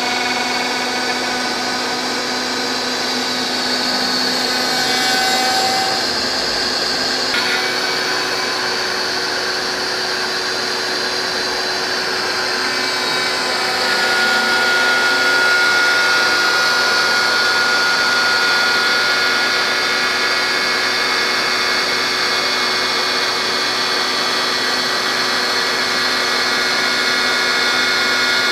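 CNC router spindle running steadily as its bit mills a 3/16-inch aluminium sheet: a steady whine over a cutting hiss. About halfway through, a higher tone enters and the sound grows slightly louder.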